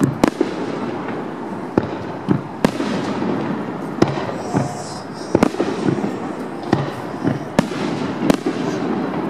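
Aerial firework shells bursting in a display: about ten sharp bangs at irregular intervals, roughly one a second, some ringing on briefly, over a steady background noise.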